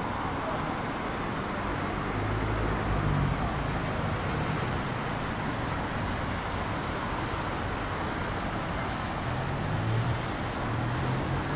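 Steady city street traffic noise, with the low rumble of passing vehicle engines growing louder twice, a few seconds in and again near the end.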